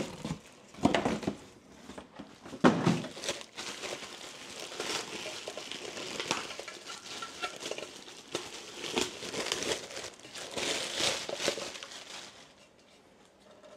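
Plastic wrap crinkling and rustling in irregular handfuls as it is handled and pulled off a glass food container, with a few sharper knocks in the first three seconds. It dies down near the end.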